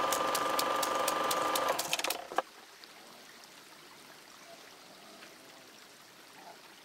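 Gunfire: rapid, irregular sharp cracks over a steady high whine, cut off abruptly about two and a half seconds in. After that only a faint steady hiss.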